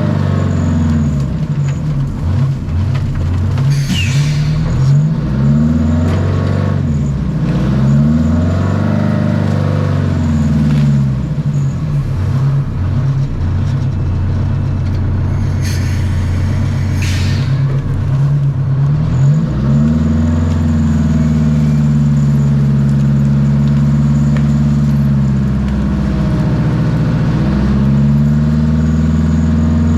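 Wheel dozer's diesel engine working under load, its speed rising and falling again and again, then running steadier near high speed for the last third with one brief dip. Short crackling noises cut through twice, about 4 seconds in and again around the middle.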